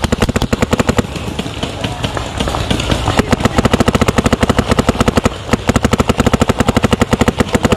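A fast, even train of sharp pops, about eleven a second, keeping up without a break.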